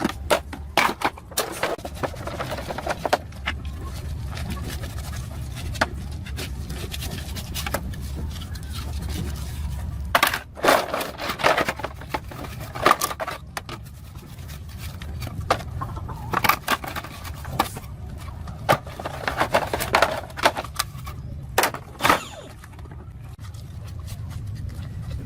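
Hand tools and metal motorbike parts clinking, knocking and scraping in irregular clusters, over a steady low hum.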